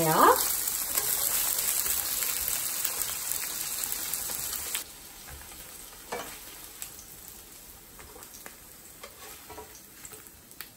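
Thick slabs of tofu sizzling as they pan-fry in plenty of cooking oil, turning golden on the surface. The sizzling stops abruptly about five seconds in, leaving a quiet background with a few faint taps.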